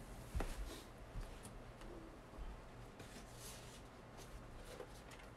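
Quiet room with faint scattered knocks and rustling from a person getting up and moving about out of view, with one louder knock about half a second in.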